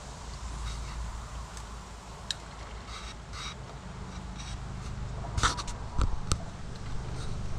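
Fishing rod and reel being handled over steady wind rumble on the microphone: a few soft clicks and scrapes as the reel is worked, then sharper clicks and knocks about five and a half to six seconds in as the rod is set down on its rest.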